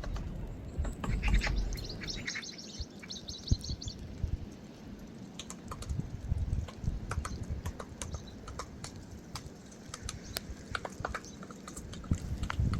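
Woodpecker tapping irregularly on tree bark, with a short run of high bird chirps about a second in.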